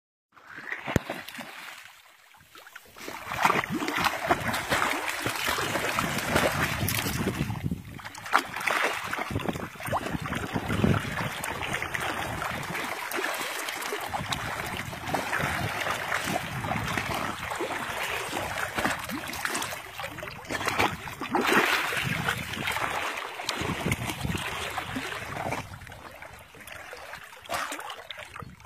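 Water splashing and sloshing in a steady run of small irregular splashes, softer for the first few seconds and again near the end.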